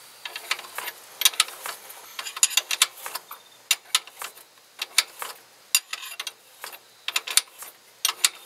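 Ratchet wrench clicking as it backs out the serpentine belt tensioner's mounting bolt, in short runs of clicks about once a second, one run per swing of the handle.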